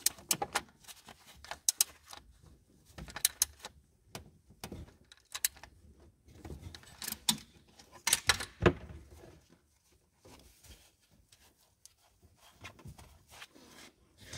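Hand tools clicking and clinking against metal in irregular short bursts as the timing belt tensioner nut is tightened.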